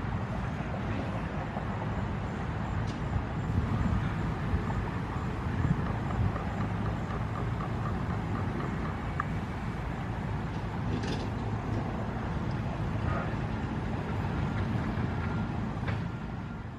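Steady low rumble of a heavy vehicle's engine amid street traffic noise, with a few faint clicks.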